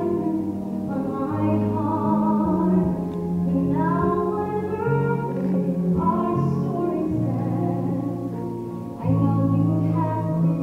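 Women's voices singing a musical-theatre ballad over sustained orchestral accompaniment, recorded live in the theatre, with the music swelling louder about nine seconds in.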